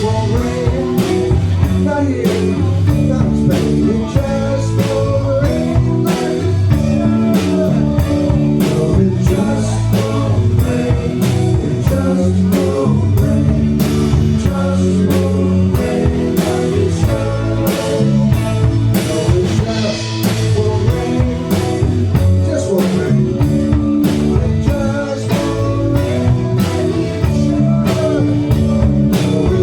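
Live blues-rock band playing, with a drum kit keeping a steady beat under guitar.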